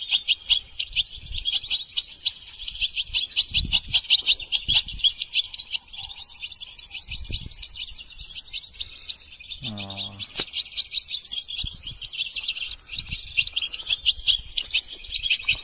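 European goldfinches singing, a continuous rapid high twittering. A short low buzzing tone sounds about ten seconds in, along with a few soft low thumps.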